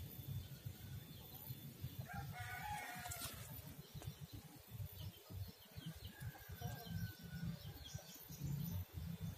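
A rooster crowing faintly, about two seconds in, over low rumbling handling noise.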